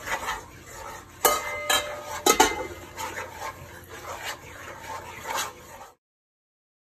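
Metal spoon stirring thick cornmeal porridge in a metal pot, scraping and clinking against the pot. Several sharp knocks of the spoon on the pot come between one and two and a half seconds in. The sound cuts off suddenly about six seconds in.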